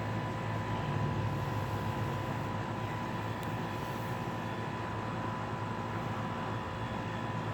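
Steady low mechanical hum of background machinery, with a faint high steady tone above it.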